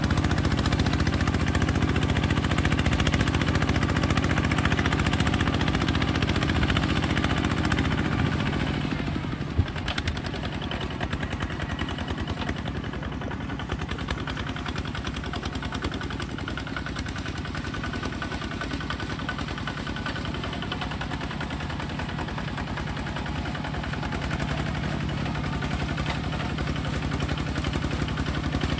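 Small bulldozer's engine running steadily, then easing down to a quieter, lower running speed about nine seconds in, with a single sharp click. It picks up again toward the end.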